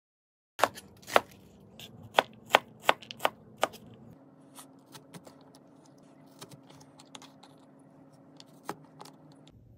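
Chef's knife chopping onion on a cutting board: about seven sharp strikes in the first few seconds. Then fainter, scattered taps and clicks as a small metal cutter is pressed into carrot slices.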